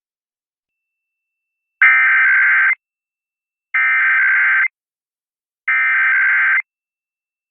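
Emergency Alert System SAME digital header: three buzzy, warbling data bursts, each about a second long and about a second apart, the first starting about two seconds in. The bursts encode the alert's header for a weekly test.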